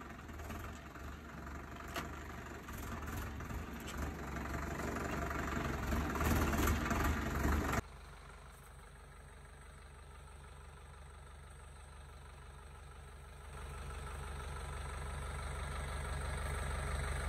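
Indofarm 3065 DI tractor's diesel engine running as the tractor is driven and shifted into gear, with a few sharp clicks. About eight seconds in, the sound drops abruptly to a quieter, steady engine hum that grows louder over the last few seconds.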